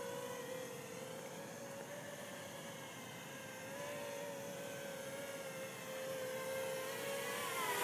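JME drone's motors and propellers humming in flight: a faint, steady whine that wavers slightly in pitch and dips a little near the end.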